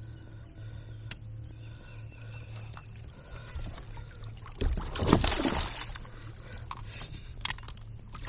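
Water splashing loudly for about a second, starting just under five seconds in, as a hooked bass thrashes at the surface beside the kayak while it is being landed. A steady low hum runs underneath.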